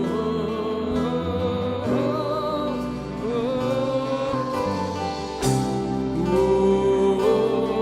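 Live gospel worship music at a slow tempo: a held melody line glides between long notes over sustained low accompaniment, with a crash about two-thirds of the way in.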